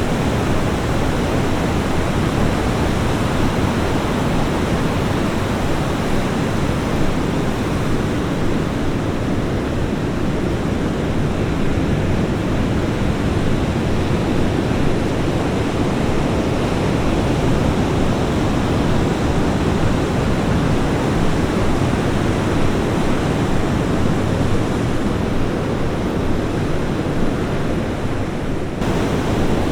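Ocean surf breaking on a beach: a steady, continuous rushing wash of waves.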